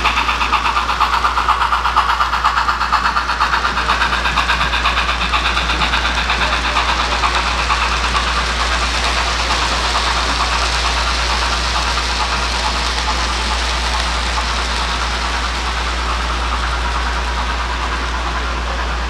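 Model steam locomotive's sound chuffing in a quick, even beat as the train runs past, the beat growing smoother and a little quieter after about eight seconds, over a steady low hum.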